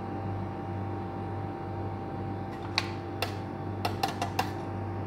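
Yogurt being added from a plastic tub into a ceramic bowl: about six light clicks and taps in the second half, over a steady low hum.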